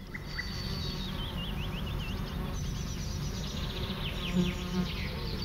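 Insects buzzing steadily, with birds chirping over them, the chirps getting busier near the end.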